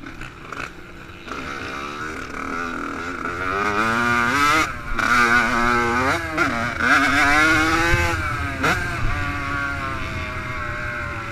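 Yamaha YZ85 two-stroke single revving hard under the rider: the engine note climbs, drops sharply and climbs again about three times as the throttle opens and closes through shifts, settling to a lower, steadier note near the end.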